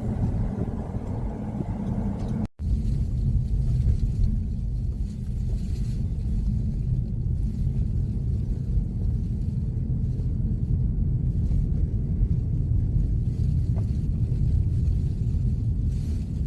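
Low, steady rumble of a car driving through deep snow, heard from inside. It breaks off sharply for an instant about two and a half seconds in.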